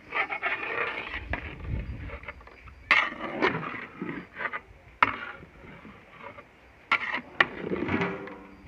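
A long-handled ladle stirring cooked rice in a large metal pot, scraping through the rice with several sharp knocks against the pot.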